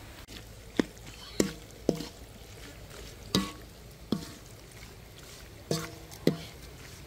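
A metal cooking utensil knocking and scraping against a metal wok while stirring octopus and chilies, about seven sharp clanks, each ringing briefly.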